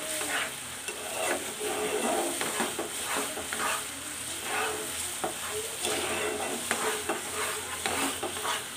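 Metal spatula stirring and scraping thick, reduced milk (kheer) around a non-stick frying pan, in repeated strokes a little under two a second, as the milk is cooked down to a finished kheer.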